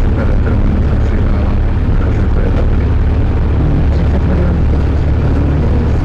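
Zetor 7011 tractor's four-cylinder diesel engine running steadily under way on the road, heard loud from inside the cab as a deep, even rumble.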